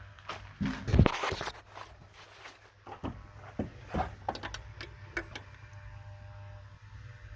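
A few loud knocks and clunks about a second in, then several sharp separate clicks, as of hand tools and parts being handled, over a steady low hum.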